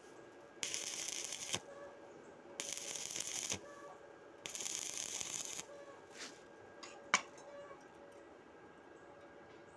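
Stick welding arc crackling on steel plate in three bursts of about a second each, with a second's quiet between, as the arc is struck and broken in turn. A single sharp click follows about seven seconds in.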